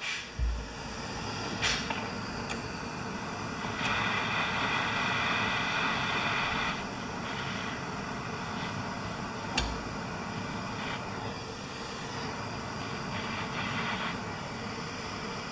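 Handheld blowtorch flame running steadily while heating a snowblower cable end to solder it, with a few sharp clicks, the loudest about half a second in and another near ten seconds.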